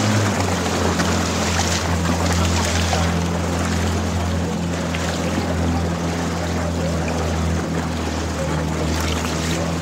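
Motorboat engine running steadily under way, its hum dropping slightly in pitch just after the start, with water rushing and splashing past the hull.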